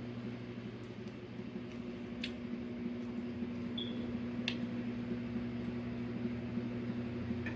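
Steady low hum of room background noise, with two short sharp clicks about two and four and a half seconds in.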